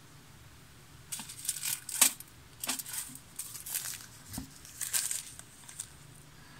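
Small plastic packet of Swarovski bicone beads crinkling in a run of short bursts as it is handled.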